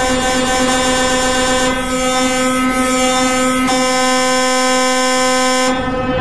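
Black MIDI played through the Arachno SoundFont: a dense, loud wall of over a hundred simultaneous synthesized notes forming one sustained chord. Near the end the texture thins suddenly to a few notes.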